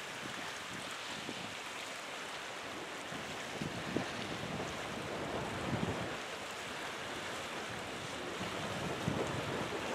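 Wind blowing across the microphone over a steady rush of sea and surf, with gusts buffeting the microphone now and then.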